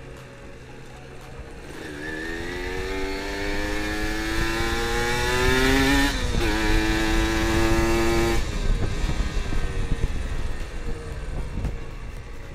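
Kawasaki Ninja R's two-stroke single-cylinder engine pulling hard, its note climbing steadily for several seconds, briefly dipping about six seconds in, then held high before the throttle closes and the engine drops back to a quieter run. Wind rushes over the microphone while it is under power.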